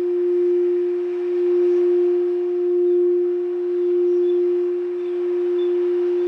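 A singing bowl held ringing as one steady, pure tone, its loudness swelling and easing in slow waves about once a second.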